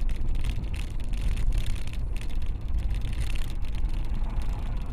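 Car driving at highway speed, heard from inside the cabin: a steady low road-and-engine rumble with a hiss of wind and tyres that flutters unevenly.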